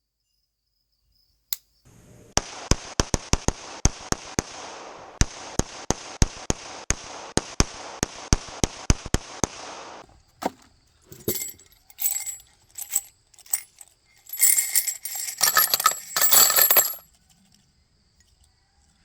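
Firearm handling: a quick run of sharp mechanical clicks over a steady hiss, then scattered metallic clicks, clinks and short rattles.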